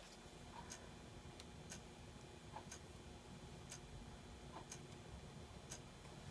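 Near silence with faint, even ticks about once a second.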